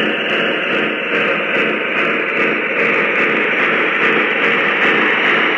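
O-scale model steam locomotive running past on three-rail track: a steady hissing rush from its onboard sound system and rolling wheels, with faint regular chuff-like ticks.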